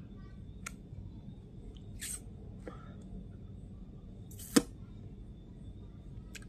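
Low steady room hum with a faint high whine, broken by a few short clicks and taps, one much sharper click about four and a half seconds in.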